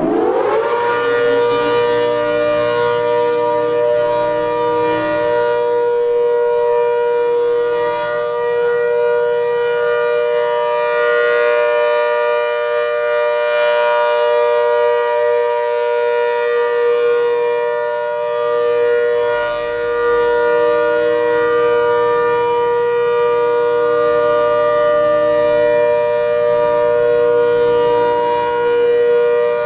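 ACA Hurricane 130 MKII dual-tone civil defense siren sounding its Alert signal. It finishes winding up to full pitch within the first second, then holds a steady two-note chord.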